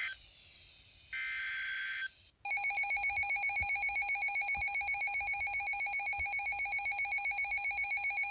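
Emergency Alert System SAME data burst, a buzzy digital screech about a second long starting about a second in. It is followed from about two and a half seconds by the EAS two-tone attention signal, 853 and 960 Hz sounded together: a steady, harsh, rasping alarm tone that announces the warning.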